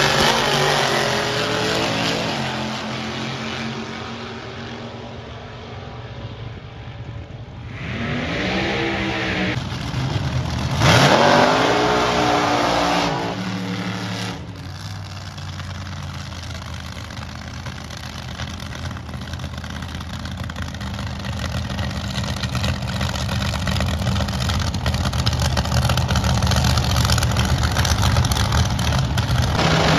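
Front-engine nostalgia dragster engines at the drag strip's starting line. The engines run loud at first and fade. Then come two sharp revs about eight and eleven seconds in, the second the loudest, as a dragster throttles up and pulls away. After that a steady idle slowly grows louder as the next dragsters line up.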